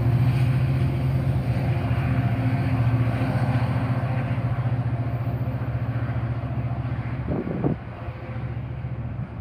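Metra commuter train departing, its diesel locomotive droning with a fast pulsing beat and slowly growing fainter. A short, louder sound comes about seven seconds in.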